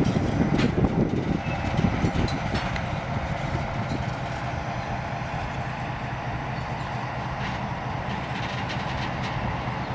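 EMD RS1325 diesel switcher locomotive running as it moves a covered hopper along the track. The engine is loudest for the first couple of seconds, then eases into a steady rumble of the rolling train with faint clicks from the wheels.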